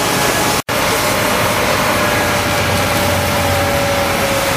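Fire engine's engine running steadily at the scene, a loud even hiss and drone with a thin whine that sinks slowly in pitch. The sound breaks off for an instant about half a second in.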